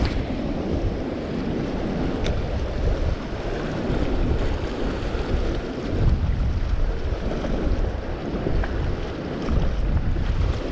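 Wind gusting on the microphone over the wash of small waves on a shallow rocky reef, with one sharp click about two seconds in.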